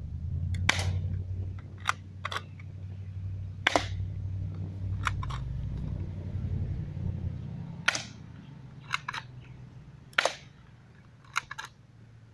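Double Eagle M33 spring-powered airsoft Uzi firing single shots: about ten sharp snaps at irregular gaps of one to two seconds, some coming as quick double clicks. A low rumble runs under the first two-thirds.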